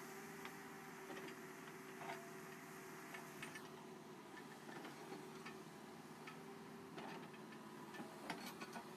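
Caterpillar backhoe loader digging, heard faintly: a low, steady engine hum with scattered light clicks and knocks as the bucket works the soil, several clustered near the end.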